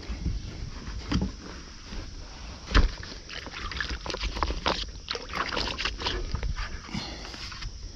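Kayak hull brushing along bankside reeds and brush: continual rustling and scraping with many small clicks, busiest in the second half, and one sharp knock about three seconds in.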